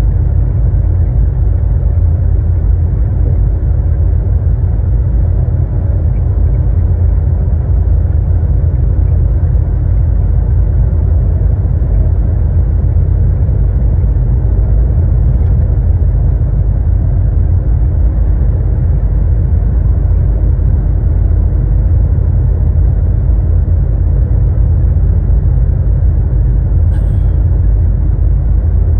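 Semi-truck cruising at highway speed, heard inside the cab: a steady low engine drone and road rumble. A brief faint click comes near the end.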